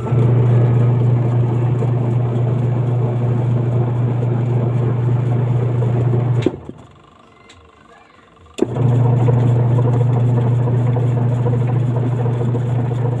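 Newly installed washing-machine wash motor running under test: a loud, steady electric hum that starts with a click, cuts off about six and a half seconds in, and starts again with a click about two seconds later.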